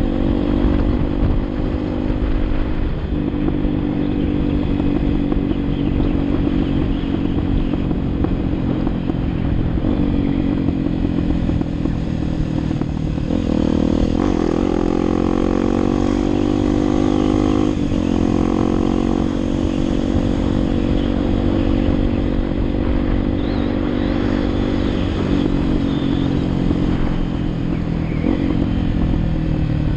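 Motorcycle engine running under way, with a dense low rush of wind noise beneath it. The engine note shifts in steps with throttle and gears, climbing about halfway through and dropping sharply a few seconds later.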